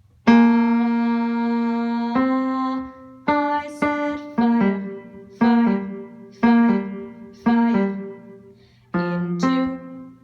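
Piano playing the coda of a choral accompaniment: a long held chord at the start, then chords struck about once a second, each dying away.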